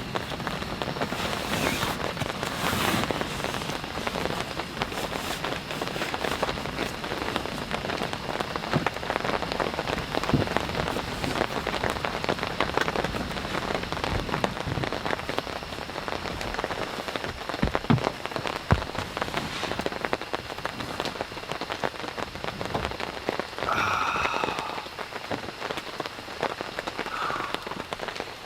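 Heavy rain falling steadily on a surface, dense with the patter of individual drops. Near the end comes a short high-pitched sound with a few overtones, about a second long, followed by a briefer one.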